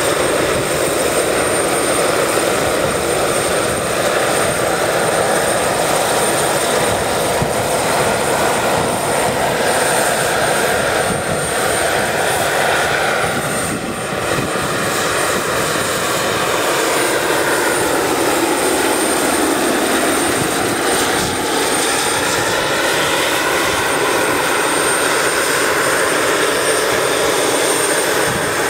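The Pahl Taurus two-stage model gas turbine and five-blade main rotor of a large RC scale Mi-24 helicopter in flight: a steady high turbine whine over the rotor noise. The mid-range tones slide lower and back up as the helicopter flies past.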